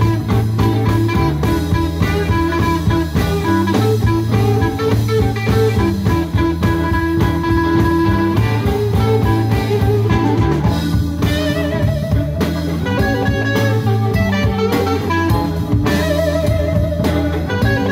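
Live band playing a soul song: two electric guitars, electric bass and a drum kit at a steady beat.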